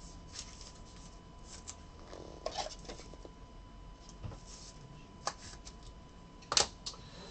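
Trading card in a plastic penny sleeve being slid into a clear plastic top loader: faint scattered plastic rustles and scrapes, with a sharper click about six and a half seconds in.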